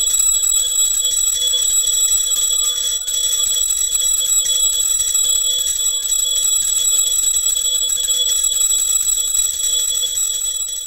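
Brass puja hand bell (mani) rung continuously during the lamp-waving offering (deeparadhana): a steady, bright ringing with several high overtones.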